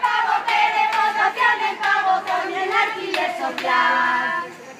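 A group of voices singing a chant together in unison, with hands clapping along; the voices fall away near the end.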